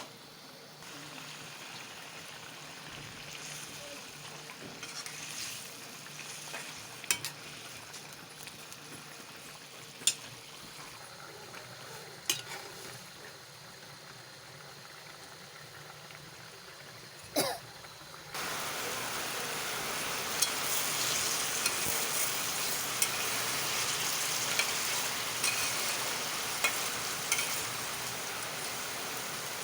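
Egg bhuna frying and sizzling in oil in a pan, stirred, with occasional sharp clinks of the spoon on the pan. About two thirds of the way through, the sizzling suddenly grows much louder and keeps going, with frequent small ticks.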